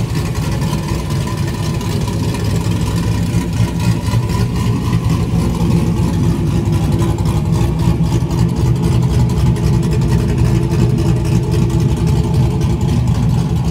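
2007 Chevrolet TrailBlazer SS's LS2 6.0-litre V8 idling with an uneven, choppy lope from its aftermarket PCMofNC Attitude V3 camshaft, exhaust cutouts open. A little louder from about four seconds in.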